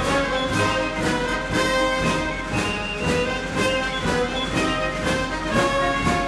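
Orchestral music with brass over a steady beat of about two strokes a second.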